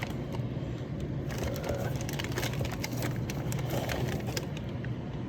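Scattered small clicks and crackles from handling the shoes and their packaging, over a steady low hum.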